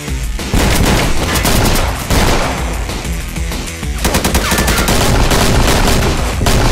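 Rapid bursts of rifle and pistol gunfire sound effects, starting about half a second in, over loud, driving background music.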